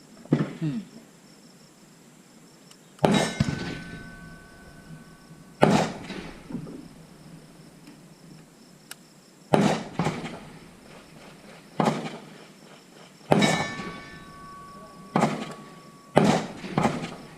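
Gunshots at an outdoor range, about ten sharp reports at irregular intervals, several trailing off with an echo and a few followed by a ringing tone.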